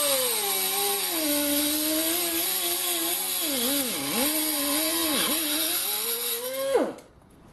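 Pencil die grinder running a thin cut-off disc through a small metal ring, a steady whine over the hiss of the cut. The pitch sags three times as the disc bites and loads the motor, then winds down quickly and stops near the end.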